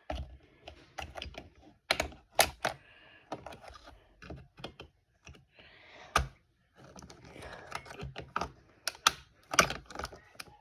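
Irregular sharp plastic clicks and clacks of a computer keyboard as keycaps are pried out, a few louder snaps among softer clicks.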